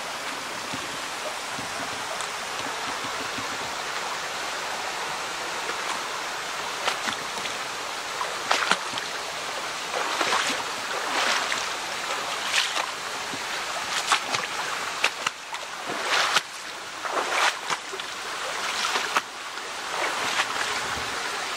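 Stream water running steadily over rocks, with irregular short, sharp knocks in the second half.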